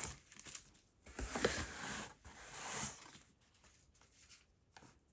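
Sports trading cards being handled and slid against each other in a stack, a few short rustling, scraping bursts, then a couple of light ticks.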